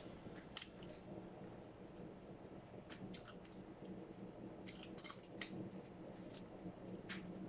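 Faint close-up eating sounds: popcorn and French fries being chewed, with scattered soft crunches and mouth clicks at irregular intervals.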